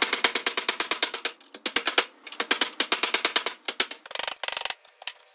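Rapid metal-on-metal hammer blows, about ten a second, as a hammer drives a drift against a part seized on the rusted shaft of a 1965 VW Beetle pedal cluster clamped in a vise. The blows come in runs with brief pauses, and the part is only starting to move.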